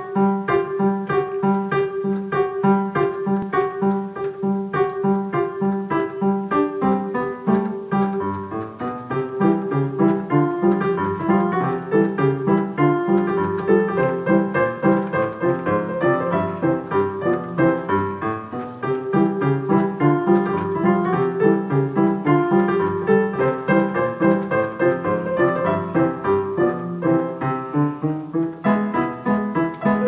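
Digital piano playing a lively ragtime piece: an even, repeating low-note beat under a busy melody of quick notes, without a break.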